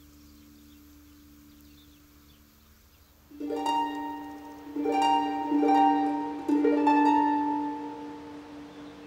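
Background music: a faint held tone, then about three seconds in soft plucked notes with sharp starts enter over a sustained low note, a few slow notes in a row.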